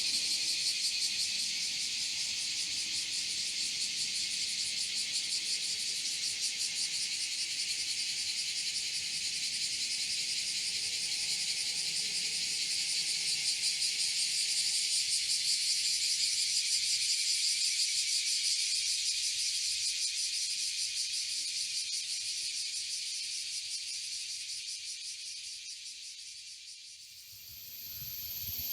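A dense chorus of insects singing, high-pitched with a fast pulsing buzz, fading out near the end.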